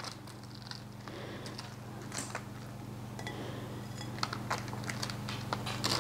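Shredded mozzarella sprinkled by hand over a crust on parchment: faint scattered rustles and light ticks, over a steady low hum.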